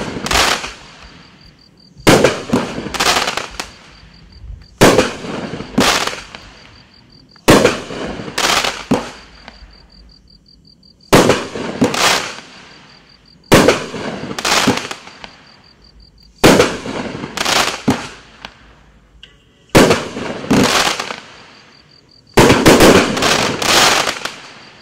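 A 200-gram consumer firework cake, Sky Painter's Watermelon Explosion, firing its shots one after another, roughly every two and a half to three seconds. Each shot is a sharp bang followed by a couple of quicker bangs that trail off. The last volley, near the end, is denser and longer.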